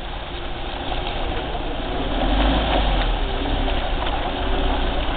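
Kia Sorento SUV's engine running as the vehicle crawls up a muddy, rutted track, growing steadily louder as it approaches.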